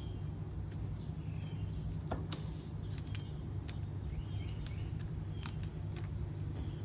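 Light scattered clicks and taps of handling on the van roof, over a steady low rumble, with faint bird chirps.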